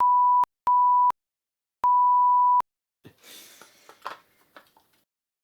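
Censor bleep: a single steady 1 kHz sine tone in three short bursts of uneven length, the last the longest, standing in for bleeped-out speech. After it, faint soft rustling with a few light clicks.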